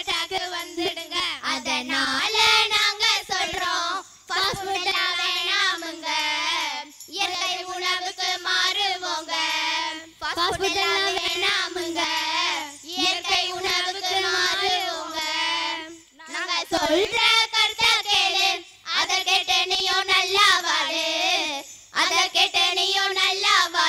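A group of girls singing together into microphones, in sung phrases a few seconds long with short breaks for breath.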